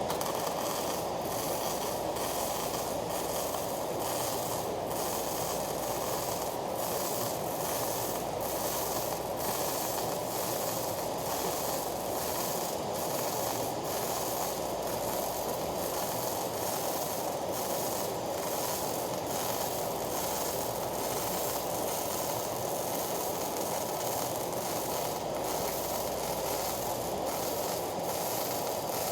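Electric arc welding: a steady hiss with irregular crackling that runs on without a break.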